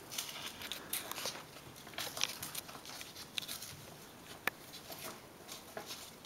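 Light scratching and clicking from a hamster moving about on a plastic cage platform, with scattered small ticks and one sharper click a little after halfway.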